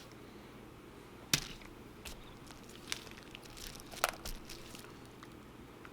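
Scattered sharp clicks and small snaps from prying at a cracked iPhone 7 Plus screen, the loudest a little over a second in.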